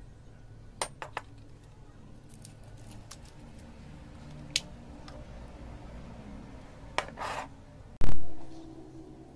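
Small plastic cups and a ceramic dish being handled: a few light clicks and taps, a short scrape, then one loud, deep thump about eight seconds in.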